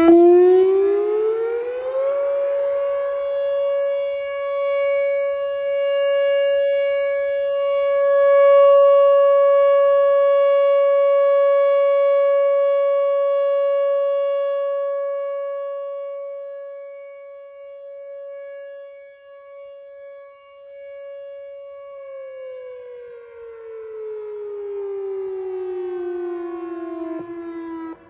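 Whelen WPS 4004 rotating electronic outdoor warning siren sounding its steady alert tone for a test. The pitch rises over about two seconds to about 560 Hz and holds one steady tone with overtones. It swells and fades in loudness as the rotating head turns. In the last several seconds it glides down in pitch.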